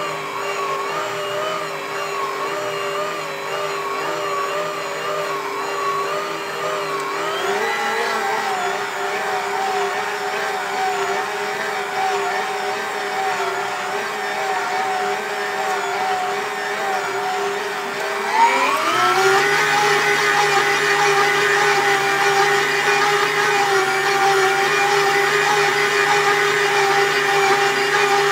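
Karaca Mastermaid Chef Pro 1750 W stand mixer's motor running as the dough hook kneads stiff mantı dough: a steady whine that glides up in pitch as the motor speeds up, about seven seconds in and again about eighteen seconds in. After the second step it is louder.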